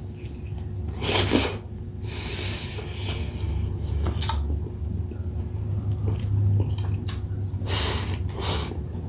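Close-miked mouth sounds of a person eating grilled chicken inasal and rice: chewing and smacking. A loud short hissing burst comes about a second in, and two more come near the end.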